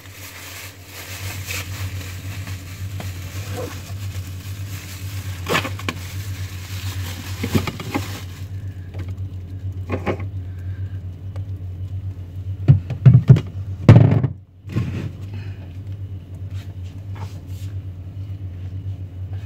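Refrigerator running with a steady low hum while a plastic bag of food and containers are put on its shelves: rustling and light knocks, then a few loud thumps about 13 seconds in.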